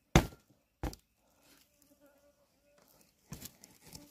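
Knife chopping into raw pork on bamboo slats: three sharp chops, the loudest about a quarter second in, another near one second and a weaker one a little after three seconds. An insect buzzes faintly in the second half.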